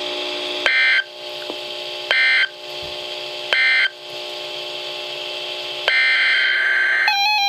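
NOAA Weather Radio sending the Emergency Alert System end-of-message code after a blizzard warning: three short bursts of raspy digital data tones, about a second and a half apart. About six seconds in, a longer burst of the same data tone begins, the header of the next alert, and a different set of steady beeping tones starts just before the end.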